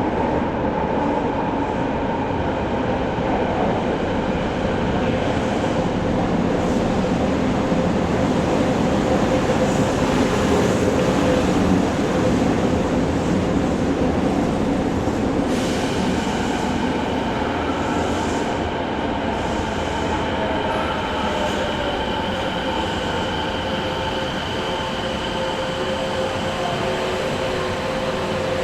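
Kobe Municipal Subway 1000-series train running in the tunnel, heard from inside the car: a steady rushing of wheels on rail with steady whining tones from the traction equipment, its old chopper control replaced by an IGBT VVVF inverter. About halfway through, higher steady tones switch on suddenly and hold.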